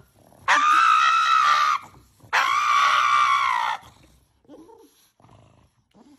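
Pug screaming at having its nails clipped: two long, high-pitched, steady screams of about a second and a half each, one right after the other.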